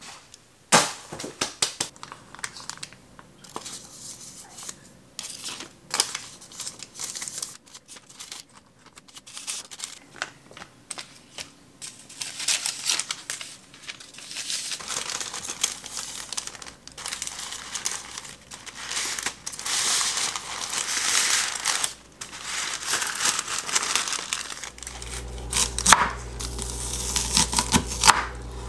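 Sheets of baking paper crinkling and rustling as they are handled and folded by hand. Near the end a knife chops on a wooden cutting board, and a low steady hum starts just before it.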